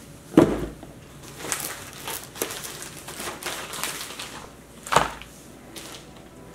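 A cardboard shipping box lands on a wooden tabletop with a thud about half a second in, followed by lighter rustling and tapping of packaging. A padded mailer envelope drops beside it with a second thud about five seconds in.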